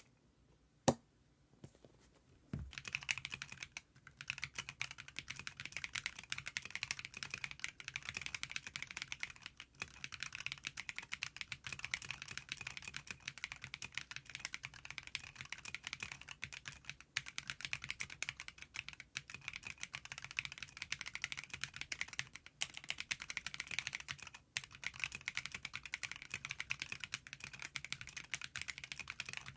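Fast, continuous typing on a Womier K87 mechanical keyboard fitted with Akko V3 Cream Yellow linear switches. A single sharp click comes about a second in, then the typing starts near three seconds and goes on with a few brief pauses.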